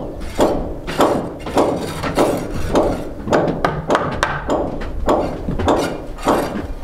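Hammering: a steady run of hammer strikes, about two a second, each ringing briefly.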